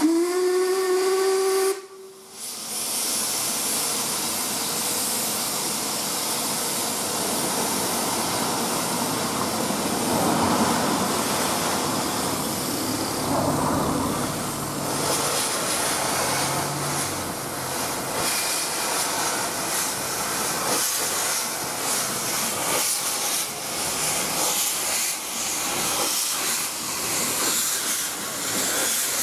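Narrow-gauge steam locomotive sounding its whistle in one blast of about two seconds that rises in pitch as it opens. It then vents steam with a loud, steady hiss, with scattered knocks in the later part as the train starts to move off.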